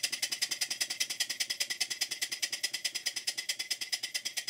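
Stuart Models 5A model steam engine running on a test run after its rebuild: a rapid, even train of hissy exhaust beats, about a dozen a second.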